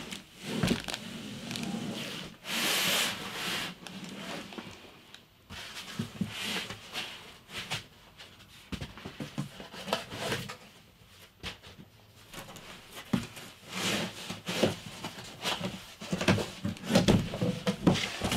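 Cardboard and foam packing rubbing and scraping as a heavy folded portable solar panel is worked out of its shipping box, in irregular scrapes with scattered knocks. There is a louder scrape about three seconds in and a denser run of knocks and rustles near the end as the panel comes free.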